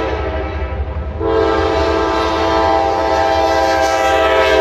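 Freight locomotive's multi-chime air horn sounding a loud chord. One blast ends about a second in; after a brief break a second, long blast starts and is held through the rest. A low rumble of the train runs underneath.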